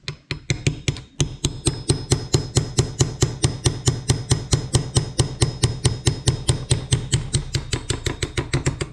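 Ball-pein hammer rapidly tapping a centre punch set in a hole of an old 7-speed bicycle freewheel's threaded ring, about six sharp metal-on-metal strikes a second with a faint ring. The taps are driving the ring round to unscrew it.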